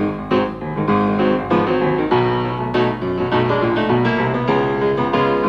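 Piano music with quick, struck chords and a moving bass line.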